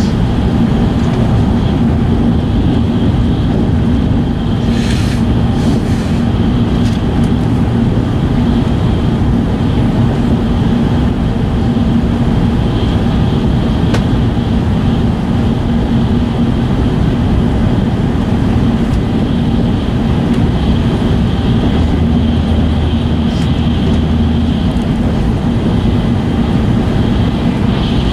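Steady running noise of an E5 series Shinkansen heard from inside the passenger cabin: a constant rumble with a steady hum and no let-up in level, and a brief hiss about five seconds in.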